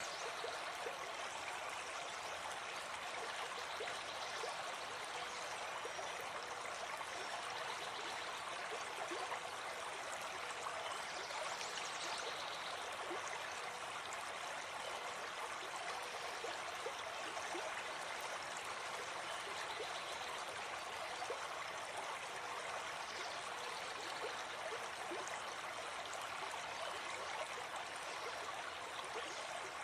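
A forest stream running steadily: an even rush of flowing water with many small splashes through it.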